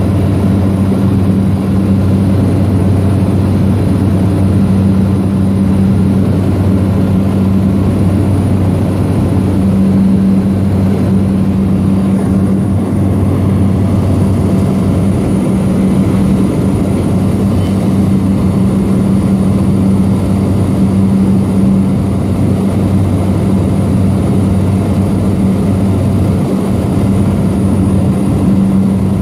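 Seaplane's propeller engine running steadily in flight, heard from inside the cabin: a loud, even, low drone that holds the same pitch throughout.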